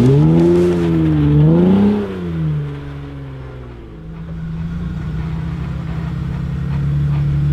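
Jeep Wrangler engine revving up and down twice in quick succession, then easing off to a steady low run that swells a little near the end.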